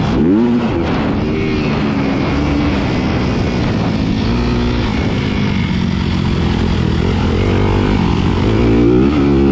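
2018 Honda CRF250R's single-cylinder four-stroke engine revving under throttle, its pitch falling and climbing again about half a second in and near the end, steadier in between.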